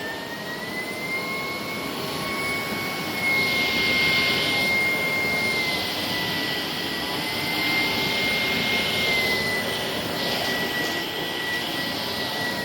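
Shark PowerDetect cordless stick vacuum running: a steady high motor whine that shifts slightly in pitch a few times over the rush of suction air, which swells louder around four and ten seconds in.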